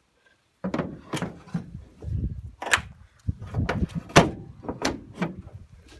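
An irregular run of about a dozen knocks and clunks, starting just under a second in, as the folding wing of a Liberty XL2 light aircraft is swung out and handled into its rigged position.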